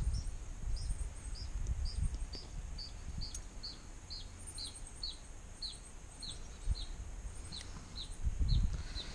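A bird calling a steady series of short, downslurred chirps, about two a second, over a low rumble.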